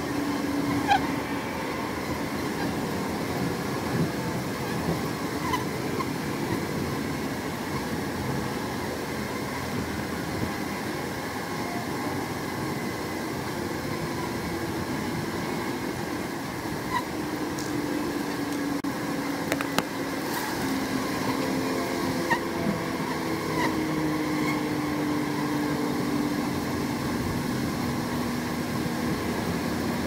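A honey bee swarm buzzing steadily, with the wavering hum of single bees flying close past rising and falling in pitch.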